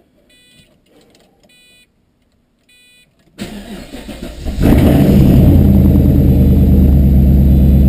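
Three short electronic chimes from the car's dash, about a second apart. Then the starter cranks the Pontiac GTO's LS2 V8 for about a second and the engine catches and runs at a loud, steady fast idle: its first start after a top-end rebuild with new LS7 lifters.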